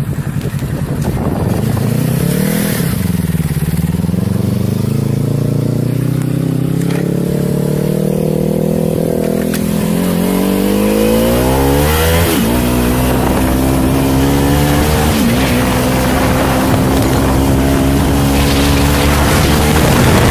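Kawasaki Z300's parallel-twin engine, freshly rebuilt with a roller-bearing crankshaft and connecting rods after a rod bearing failed, on a test run. It is blipped once, then pulls away with its pitch climbing steadily, drops in pitch at upshifts about twelve and fifteen seconds in, and then runs at a steadier speed.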